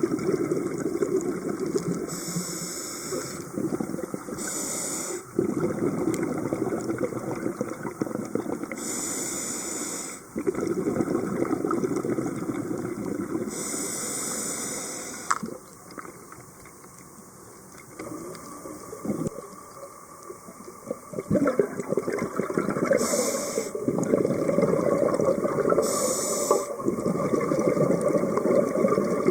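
Scuba diver breathing through a regulator underwater: short hissing inhalations alternate with longer stretches of rumbling exhaust bubbles, about six breaths in all, with a quieter pause around the middle.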